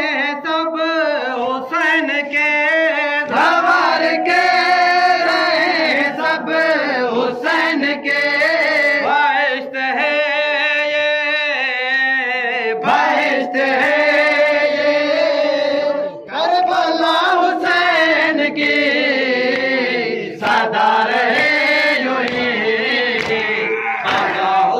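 Men's voices chanting a noha, a Shia lament for Husain, unaccompanied, in long drawn-out wavering phrases with brief breaths between them.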